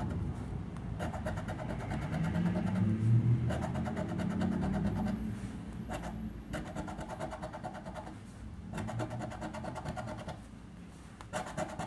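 A coin scraping the scratch-off coating of a paper scratch card in rapid back-and-forth strokes. The strokes come in several spells of a second or two with brief pauses between.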